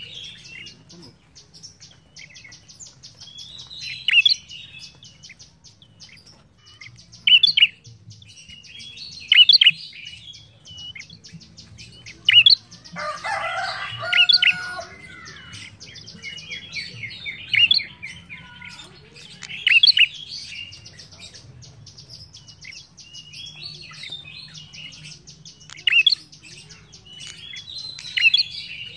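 Caged prenjak kepala merah (red-headed prenjak) singing: loud, sharp chirping phrases every two to three seconds, with a longer, fuller burst about halfway through. A fast, even high ticking runs underneath.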